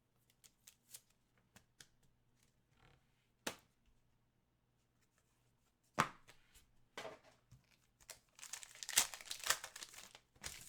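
Light handling clicks and a couple of sharp taps, then, about eight seconds in, a stretch of tearing and crinkling as a trading-card pack wrapper is ripped open.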